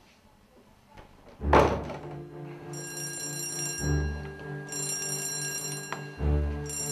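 A heavy thump about a second and a half in, then dramatic background music: sustained tones with a deep pulse about every two and a half seconds and bursts of high ringing tones.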